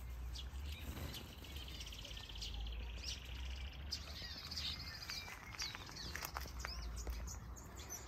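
Mixed small aviary birds, finches and softbills, chirping and calling together: a fast, buzzy trill repeats through the first half, then a run of short, sharp chirps toward the end.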